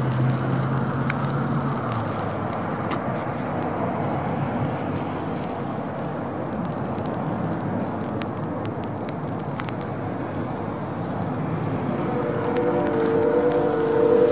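Road traffic on wet pavement: a steady wash of tyre and engine noise. A low hum fades out about two seconds in, and a higher engine drone rises near the end.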